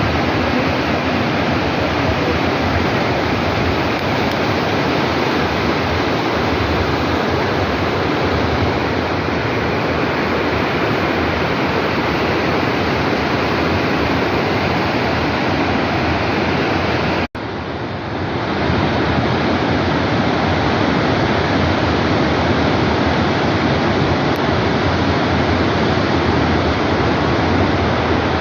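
The Rhine Falls waterfall rushing: a loud, steady roar of falling water, broken by a momentary dropout about two-thirds of the way through, after which it comes back slightly quieter and swells up again.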